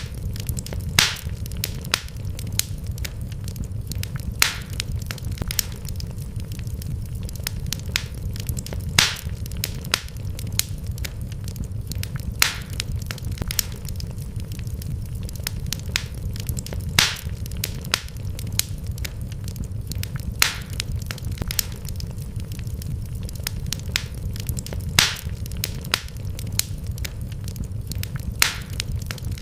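Wood fire crackling in a fireplace: a steady low rumble of flames under irregular sharp crackles, with louder pops every few seconds.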